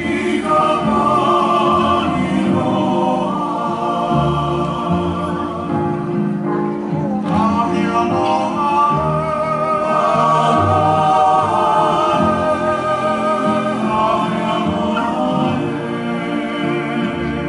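Live Hawaiian song accompanying a hula dance: singing voices holding long notes with vibrato over plucked string accompaniment and a steady bass line.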